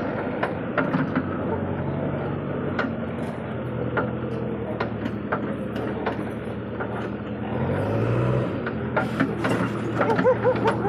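JCB backhoe loader's diesel engine running as it drives over a rough dirt track, with frequent sharp clanks and knocks from the machine. The engine pitch rises briefly about eight seconds in.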